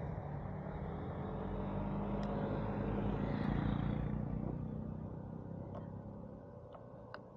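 Motorcycle engine and road rumble as the bike slows and rolls to a stop. The sound swells about three seconds in, then fades away to a low, steady level.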